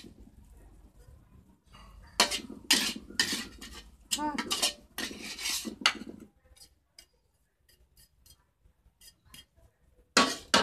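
Metal ladle scraping and clinking against a wok and a plate as fried fish is dished up. A run of scrapes and clatters is followed by a few light clinks, then a loud clatter near the end.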